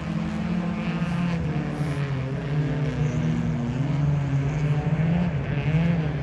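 Folkrace cars racing on a gravel track, their engines revving hard with the pitch rising and falling through gear changes.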